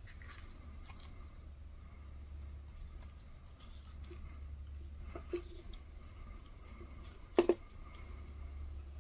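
Hand-stitching a leather knife sheath: thread being pulled through the punched holes, with small rasps and handling rustles, over a steady low hum. A sharp click about seven seconds in is the loudest sound, with a smaller one a couple of seconds earlier.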